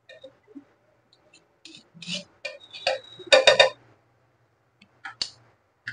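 Metal spoon and knife clicking and scraping against an iron pan as a lump of butter is pushed off into it: scattered light taps, with a louder cluster of strokes about halfway through.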